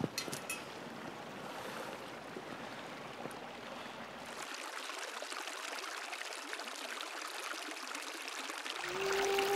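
Small forest stream running over stones: a steady rush of trickling water. There are a few light clicks right at the start, and held music tones come in near the end.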